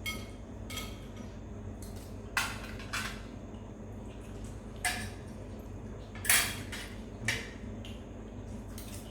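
Cutlery clinking against plates and bowls during a meal: about seven separate clinks, spaced a second or so apart, the loudest about six seconds in.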